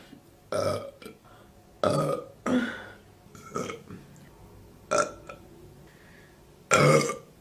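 A woman burping over and over: about six short, pitched burps with pauses between, the loudest and longest near the end.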